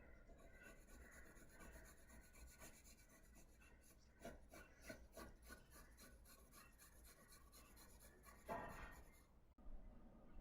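Faint pencil strokes rubbing on sketch paper while shading: a run of quick short strokes in the middle and one longer, louder stroke near the end.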